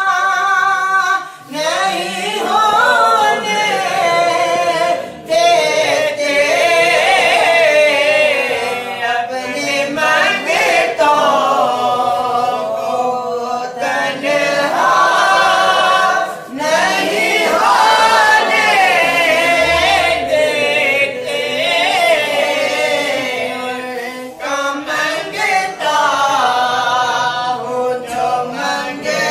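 Voices singing a naat unaccompanied, in long wavering drawn-out notes, with short breaks between phrases.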